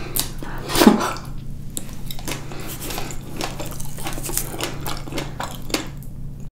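Close-miked eating sounds of a ripe black mission fig being bitten and chewed: a run of wet mouth clicks and squishes, with one louder, longer wet sound falling in pitch about a second in. A steady low hum sits underneath.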